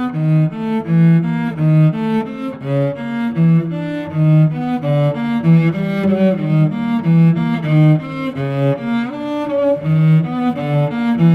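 Instrumental soundtrack music led by a cello, playing a steady line of short notes that change two or three times a second over a bass line.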